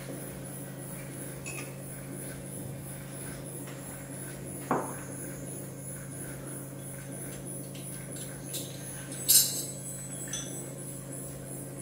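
Live experimental electronic performance: a steady low hum of a few held tones with sparse small clicks, a short knock about five seconds in, and a sharp clink, the loudest sound, a little after nine seconds.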